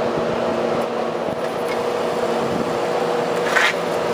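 Rooftop exhaust fan running: a steady hum with a steady mid-pitched tone through it. A short scraping clatter sounds about three and a half seconds in.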